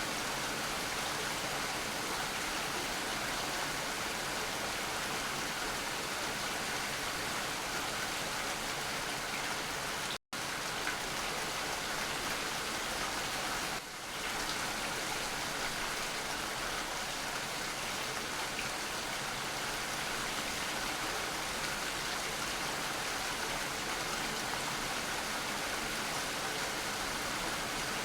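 Steady rain falling, an even hiss of many drops with no single event standing out. About ten seconds in the sound cuts out completely for an instant, then resumes.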